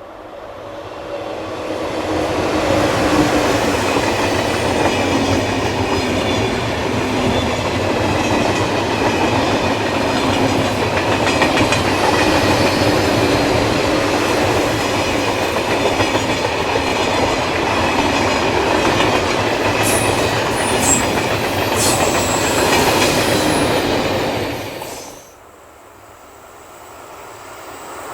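Electric passenger train passing at low speed, a steady rumble of wheels on the rails with clickety-clack over the rail joints and a few brief high wheel squeals. It swells up over the first couple of seconds and drops off sharply near the end.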